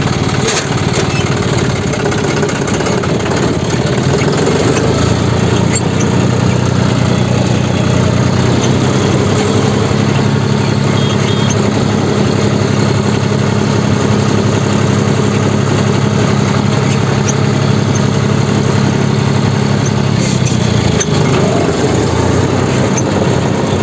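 A vehicle engine running just after being started, picking up speed about four seconds in, running evenly under way, and easing off near the end.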